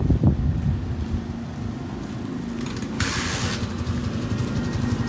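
A motor vehicle engine running steadily with a low rumble, with a short hiss about three seconds in.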